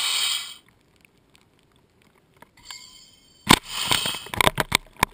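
Soda-bottle water rocket launch: compressed air and water hiss out of the PVC launcher, cutting off about half a second in. About three and a half seconds in comes a sharp knock, then a quick patter of taps as falling water drops hit the upward-facing camera.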